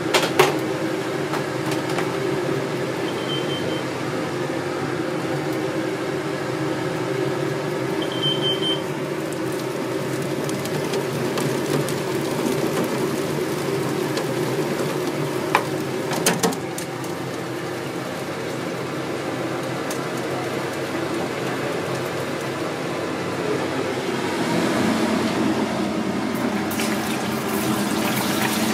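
Steady rush of running water in a stainless-steel kitchen sink, over a steady hum, with a few short knocks of a metal mesh strainer about halfway through.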